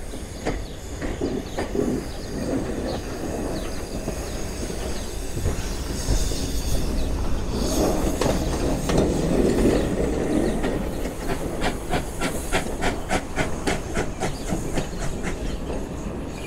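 Small tank-engine steam locomotive running light beneath a footbridge, hissing steam and chuffing. It is loudest about halfway through as it passes underneath, then a quick, even clicking runs on as it draws away.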